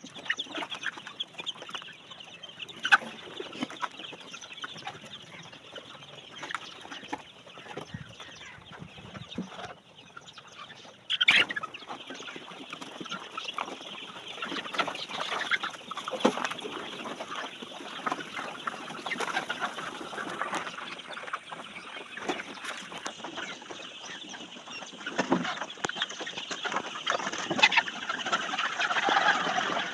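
A flock of laying hens in a poultry house clucking, many birds calling over one another without a break.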